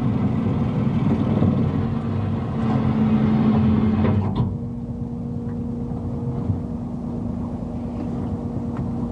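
Steady mechanical hum of a small fishing boat's engine and hydraulic net hauler running as a gillnet is hauled aboard. A louder rushing layer drops away about four seconds in, leaving the steady hum.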